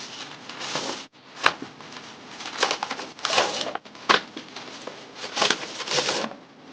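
Plastic packaging rustling and crinkling in irregular bursts, with sharp clicks of hard plastic, as toy robot figures and their parts are taken out of the box.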